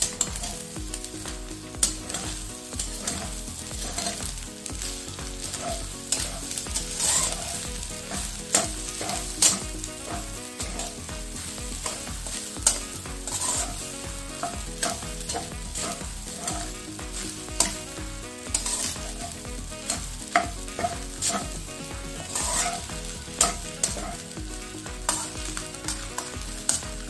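Rice and scrambled egg stir-frying in a hot oiled wok: a steady sizzle, with a slotted metal spatula scraping and knocking against the pan in irregular strokes as the rice is tossed.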